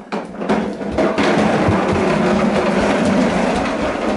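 Plastic toy shopping cart's wheels rolling and rattling across a hard floor as a toddler pushes it. It is a steady, loud clattering rumble that starts suddenly at the beginning and is at full strength from about a second in.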